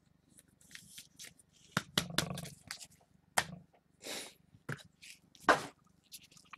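Trading cards and pack wrappers being handled on a table: scattered short rustles, slides and crisp clicks with pauses between them.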